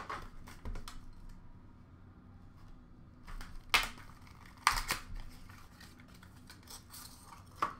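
Hockey card pack being opened by hand: soft rustling of the paper wrapper and packaging, with a few sharp crackles about four and five seconds in as the wrapper is pulled open.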